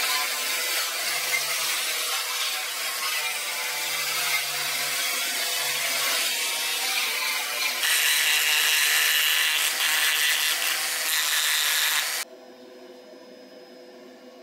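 Dremel rotary tool on a flex-shaft handpiece grinding wood with a carving burr, a steady high grinding with a motor whine underneath. It grows harsher and louder about eight seconds in, then cuts off suddenly about four-fifths of the way through, leaving a faint hum.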